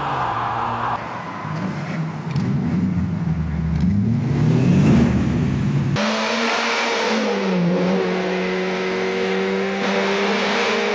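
Car engine revving and accelerating in rising sweeps, then an abrupt cut about six seconds in to a steady engine drone holding one pitch, dipping briefly and recovering.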